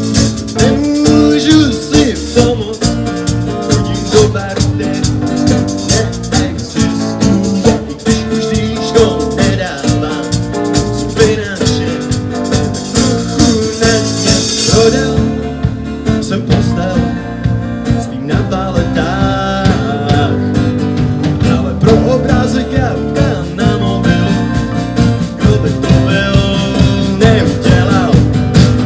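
A live band plays: acoustic guitar, electric piano, electric bass and drum kit. A bright high shimmer drops away about halfway through, while the band plays on.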